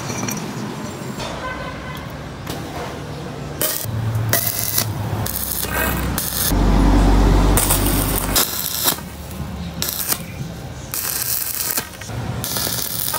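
Steel pipes clinking and scraping on a concrete floor, then stick (arc) welding: the electrode crackles and sizzles in short bursts, each stopping when the arc is broken. A louder low rumble comes about halfway through.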